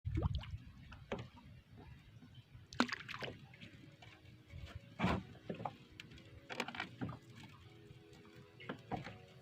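Water sloshing and lapping against a small fishing boat, with irregular light knocks and splashes, over a faint steady hum.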